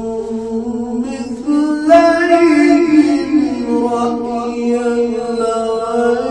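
A man reciting the Qur'an in melodic tajweed style, holding long sung vowels. The pitch steps up about a second and a half in and settles back down a couple of seconds later.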